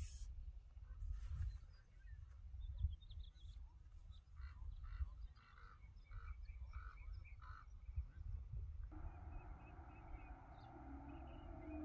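Faint outdoor ambience with a low rumble, and an animal calling in a run of about eight short, evenly spaced notes. Soft sustained music tones come in about three quarters of the way through.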